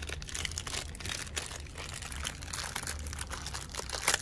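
Packaging crinkling and crackling by hand as a small brass pressure relief valve is unwrapped, with a sharper crackle near the end.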